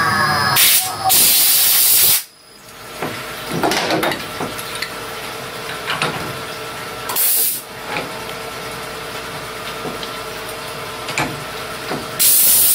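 Compressed air blasting from a blow gun to clear aluminium chips off a milled part and vise: four hissing blasts, two in the first two seconds, one around seven seconds and a longer one near the end. Under them a CNC machining centre hums steadily, with a few light ticks and knocks in between.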